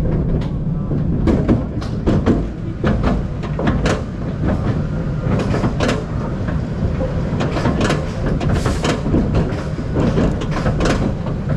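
B&M sit-down roller coaster train rolling slowly along the final brake run into the station: a steady wheel rumble with irregular clicks and clunks from the track and train.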